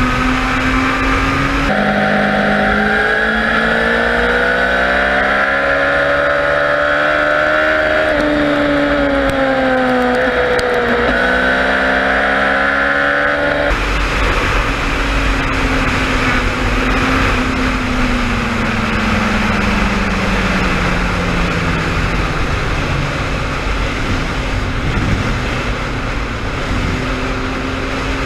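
Inline-four sport bike engine running at highway speed under steady wind rush. The engine pitch climbs slowly, dips once and climbs again. About halfway through the wind rush grows louder and the engine pitch slowly sinks as the bike eases off.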